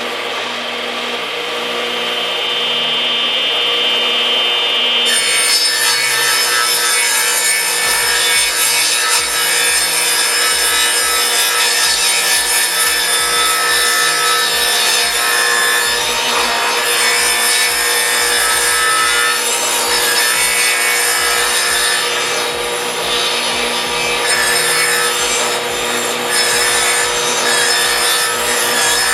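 Chainsaw running under load as it rips along the edge of a rough plank in a homemade chainsaw mill, cutting the board straight. It builds over the first few seconds, then cuts steadily.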